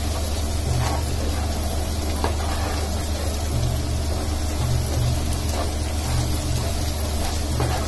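Chopped onions and crushed ginger-garlic frying in oil in a non-stick pan on a high flame, with an even sizzle and a few light scrapes and taps of a plastic ladle as it stirs, over a steady low hum.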